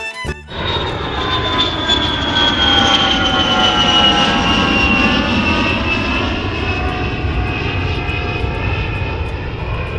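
A loud, continuous engine drone like an airplane passing, with several tones drifting slowly in pitch. It cuts in suddenly about half a second in, as music stops.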